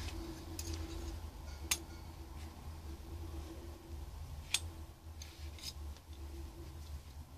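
A few sharp metallic clicks and short scrapes from a caliper being handled and slid while measuring the depth of a drilled hole, with the strongest clicks about two and four and a half seconds in. A low steady hum runs underneath.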